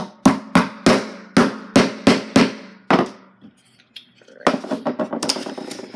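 Hammer driving a nail into the wooden kit: about ten sharp blows, roughly three a second, over the first three seconds. After a short pause, a quicker run of lighter taps and clatter comes near the end.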